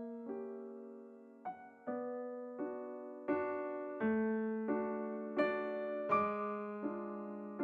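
Background music: a solo piano playing a gentle, slow piece, notes and chords struck about every 0.7 seconds, each fading before the next.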